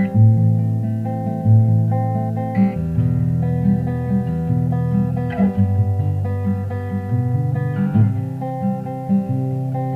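Background music: acoustic guitar playing with a steady rhythm over a bass line.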